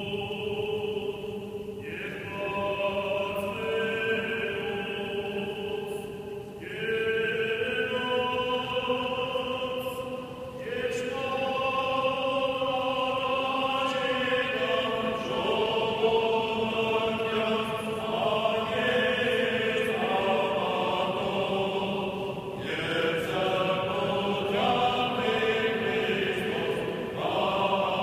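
Armenian church choir singing a slow liturgical chant in several voices, with long held notes, in phrases broken by a few short pauses.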